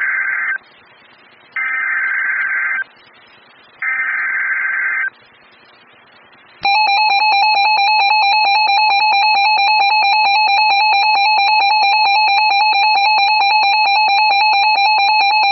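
Emergency Alert System signal on NOAA Weather Radio: the end of one burst of the screechy digital header code, then two more identical bursts about a second long each, then a loud steady attention tone starting about six and a half seconds in. It marks the start of a new warning broadcast.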